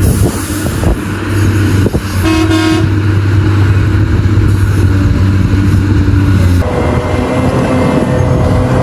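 Heavy diesel mining machinery running steadily, with a short horn toot about two seconds in. The engine sound changes abruptly near the end.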